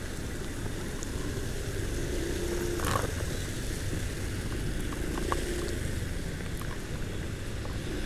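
Heavy rain and wind noise on a helmet-mounted microphone while a Honda Vario 125 scooter's single-cylinder engine runs underneath, riding off through a storm. A short sharp knock comes about three seconds in.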